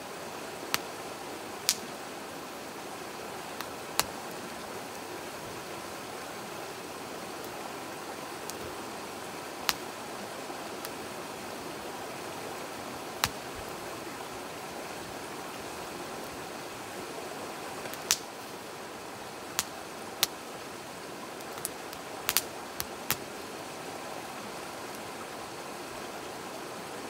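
Split firewood burning in a metal fire pit, crackling with about a dozen sharp, irregular pops, several close together near the end, over the steady rush of a stream.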